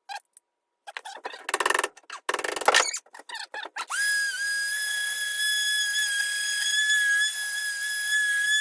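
A few short scraping knocks, then an electric power tool's motor switched on and running at a steady high whine for about six seconds.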